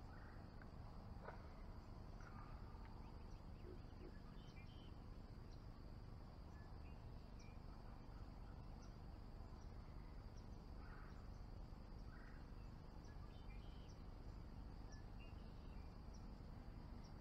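Faint swamp ambience: a steady high-pitched insect drone, with scattered short bird chirps and a low background rumble.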